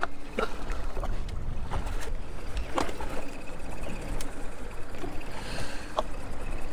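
Low wind rumble on the microphone over a fishing boat, with several sharp knocks and clicks as a landing net holding a walleye is swung aboard and handled against the boat.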